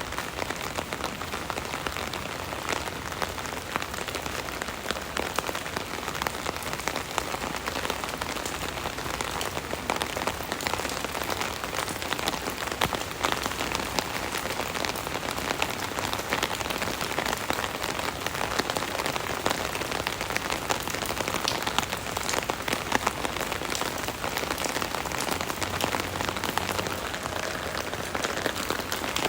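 Steady rain pattering on an umbrella canopy, a dense, even patter of many small drop impacts.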